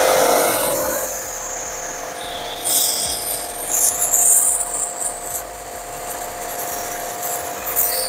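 Benz BZ 8570 700-watt electric high-pressure washer running: a steady motor hum under the hiss of its water jet spraying onto concrete.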